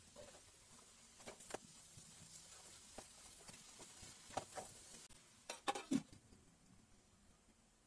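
Stir-frying shredded cabbage and carrots in a stainless steel wok: a spatula tossing and scraping the vegetables against the pan in short knocks over a faint sizzle, with the loudest cluster of knocks about six seconds in.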